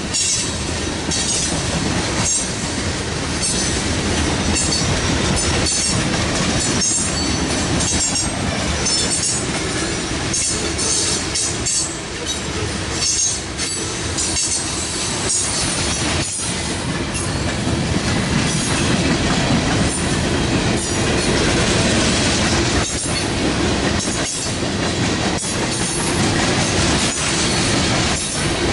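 Freight cars of a mixed manifest train (tank cars, covered hoppers, coal hoppers, boxcars) rolling past: a steady rumble of steel wheels on rail, with repeated clicks and patches of high-pitched wheel squeal.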